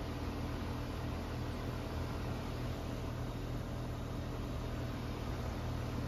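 A 2012 Bryant Evolution two-stage heat pump's outdoor unit running steadily: a low hum with an even hiss over it.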